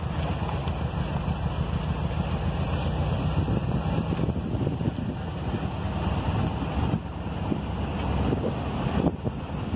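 Wind buffeting the microphone outdoors: a steady, flickering low rumble.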